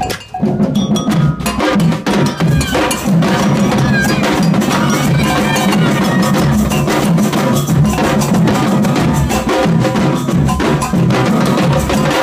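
Samba percussion band playing a driving batucada: large surdo bass drums, with sticks on smaller drums and a clanking bell part on top. After a brief gap about half a second in, it runs loud and steady.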